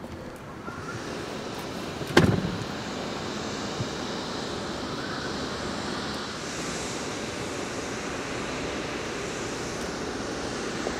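Steady rushing wind noise, with one sharp thump about two seconds in.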